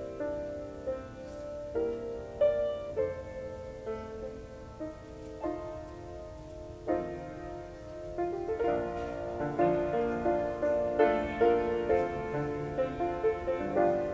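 Piano playing slow offertory music in chords, growing fuller and louder a little past halfway.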